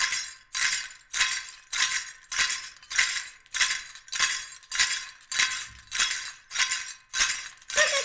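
Mapuche kaskawilla (cascahuillas), a string of small metal bells with bits of metal or pebbles inside, shaken in a steady rhythm of just under two jingles a second.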